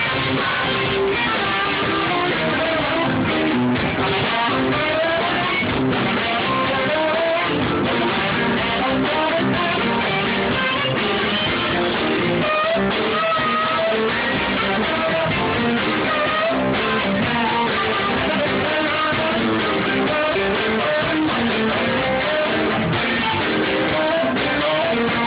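Live soul band playing, with electric guitar and saxophone prominent over the rhythm section.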